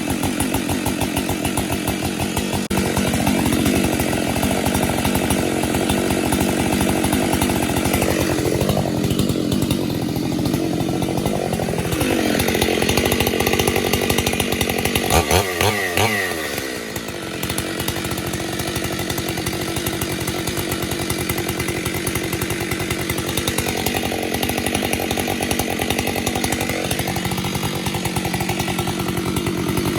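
Two-stroke chainsaw running steadily, its engine speed rising and falling several times as the throttle is worked, with a sharp drop in engine speed about sixteen seconds in before it picks back up.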